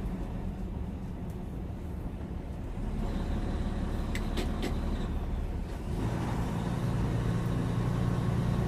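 Semi truck's diesel engine droning steadily at highway speed, with road noise inside the cab. There are a few light clicks around four seconds in, and the engine note grows louder and fuller about six seconds in.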